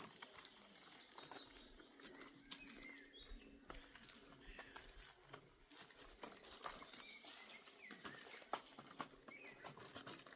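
Faint, soft smacking clicks of a goat kid suckling at its mother's udder, with a few faint bird chirps in the background.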